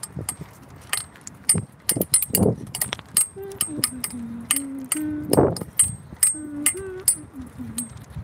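Irregular sharp metallic clicks, some with a brief high ring, like a ratchet. From about 3.5 to 7 seconds in, a boy hums a few held notes of a tune.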